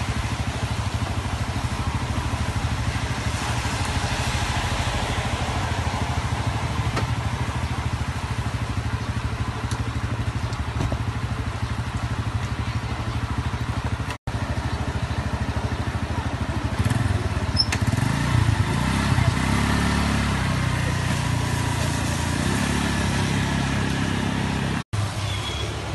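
Cars and motorbikes idling and moving slowly on a wet street, a steady low engine hum. An engine note rises and falls for a few seconds past the middle. The sound cuts out completely for an instant twice.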